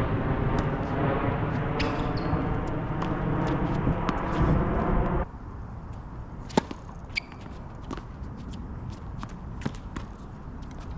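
A loud steady rushing noise that cuts off suddenly about five seconds in, then a tennis serve: the racket strikes the ball with one sharp crack, followed by lighter ball hits and bounces on the hard court.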